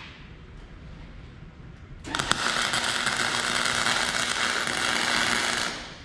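A Chicago Electric 120-volt AC welder arc-welding steel horseshoes. The arc strikes about two seconds in with a few sharp ticks, then burns steadily for nearly four seconds before cutting off.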